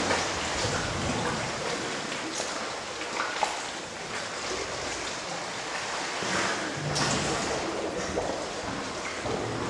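Sea water sloshing and washing in a sea cave: a steady rush of waves with a few brief splashes.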